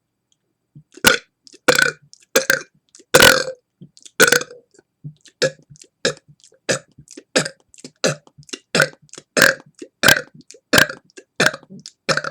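A man belching over and over from deliberately swallowed air: a fast string of about twenty short burps, nearly two a second, starting about a second in, with the loudest around three and four seconds in.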